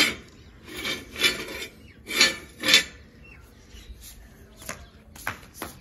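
Welded metal microwave-stand frame dragged and scraped across a ceramic tile floor in three or four short, harsh scrapes, followed by a few faint taps.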